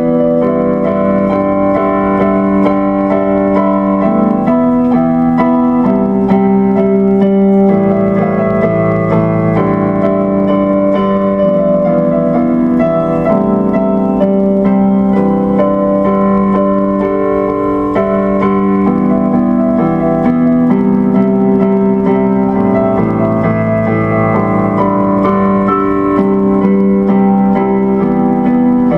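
Instrumental background music on electric piano or keyboard, playing steady sustained chords.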